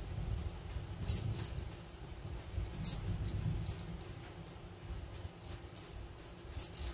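A metal utensil clinking and scraping against a ceramic plate as pieces of pork rib are pushed into place: a scattering of sharp, irregular clinks over a low rumble of handling.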